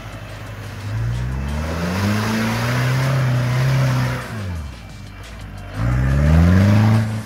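Mitsubishi Pajero MKII turbodiesel engine revving under load as it pulls out of a mud rut. It climbs about a second in and holds high, drops off around four and a half seconds, then surges up again near the end.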